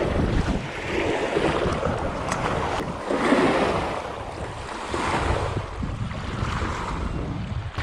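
Wind-driven small waves lapping against a rocky lakeshore, washing in every second or two, with wind buffeting the microphone in a low rumble.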